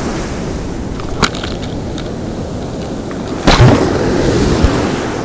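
Ocean surf washing and wind on the microphone, with a sharp click about a second in. About three and a half seconds in comes a loud thump, and after it a louder, low, muffled churning.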